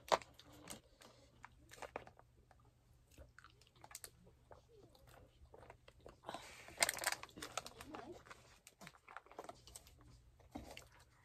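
Eating sounds: chewing, with small clicks and scrapes of a plastic spoon in a foil takeaway tray. A louder rustle comes about six to seven seconds in.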